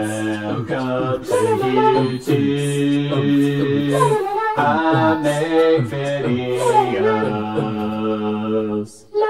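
A cappella vocal music: several voices singing held chords under a moving melody, stopping abruptly near the end.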